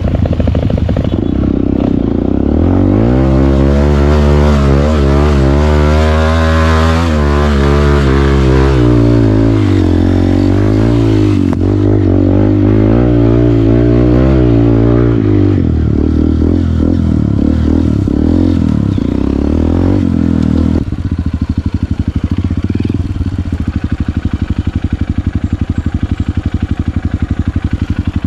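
Honda CRF150L dirt bike's single-cylinder four-stroke engine running. The revs climb about three seconds in and rise and fall for the next dozen seconds, then settle to low, steady revs from about twenty seconds on.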